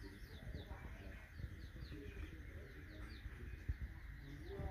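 Small birds chirping: short falling chirps several times a second over a low background rumble, with a couple of sharp knocks near the end.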